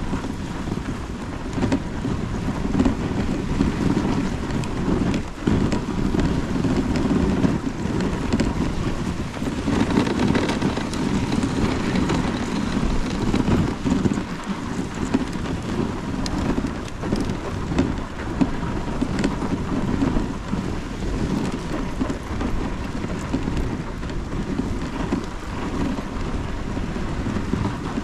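A moving dog sled: runners hissing and scraping steadily over a packed snow trail, mixed with wind on the microphone.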